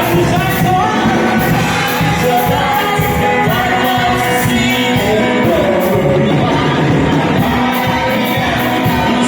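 Live gospel worship music: singers with a backing band, over a steady beat.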